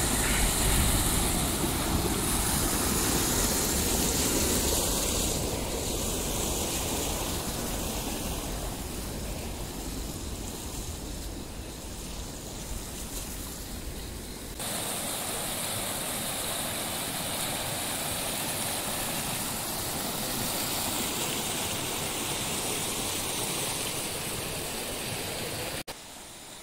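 Rushing water of a shallow mountain stream pouring over a small stone weir. It is loudest at first and fades, then gives way suddenly to a steadier, thinner hiss of flowing water about halfway through.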